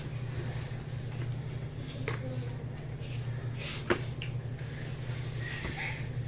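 Quiet handling of a trading-card box and its packs: a few soft clicks and light rustling over a steady low electrical hum.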